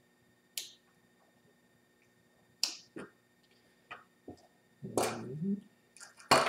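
Plastic pluggable wire connectors and cables being handled and plugged in by hand: a handful of sharp, separate clicks and snaps a second or so apart, with a longer rustle of cable about five seconds in.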